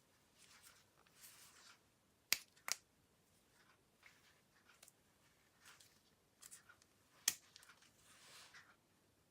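Slime being squished and worked by hand: soft, wet swishing with three sharp pops, two close together a couple of seconds in and one near the end.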